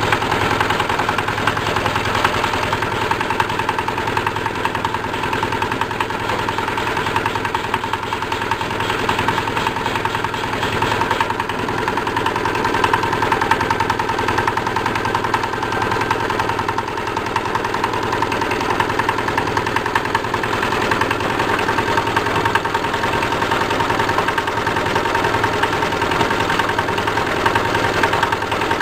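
Engine driving a tuber-washing machine's rotating perforated stainless-steel drum and brushes, running steadily with a rapid even beat, over water splashing and spraying inside the drum.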